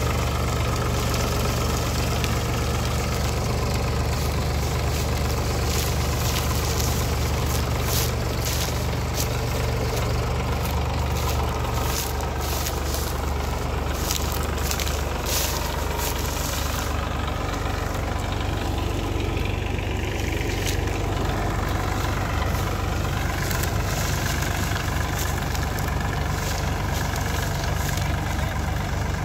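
Massey Ferguson 245 DI tractor's three-cylinder diesel engine running steadily while it tows a heavily loaded sugarcane trolley. The low engine beat turns more pulsing a little past halfway.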